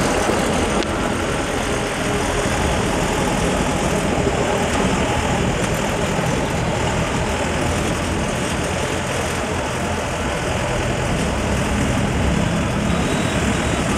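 GAM Ruilong mini crawler combine harvester's engine running steadily, with the threshing drum and cutter not yet engaged.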